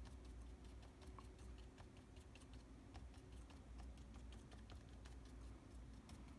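Faint, irregular light taps of a watercolour brush stippling paint onto paper, several a second, over a faint steady hum.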